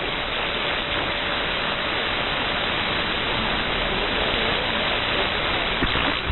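Open-squelch hiss from a receiver's audio on 11-metre CB channel 6 (27.025 MHz): steady band noise with no station coming through. A click comes near the end.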